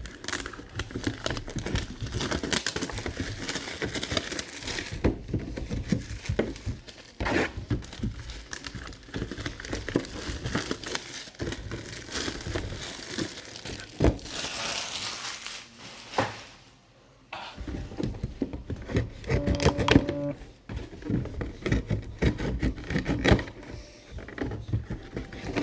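Hands tearing open and crinkling the packaging of mini football helmet boxes: continual rustling and ripping with small knocks, and one longer tearing stretch just past halfway.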